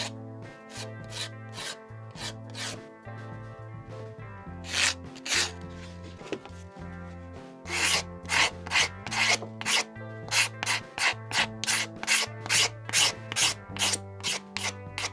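Hand scraper drawn in strokes across a faded, eroded plastic motorcycle tank side cover, shaving off the thin dull surface layer to expose clean white plastic. The strokes are scattered at first, then settle into a steady run of about two a second from about halfway through, with background music underneath.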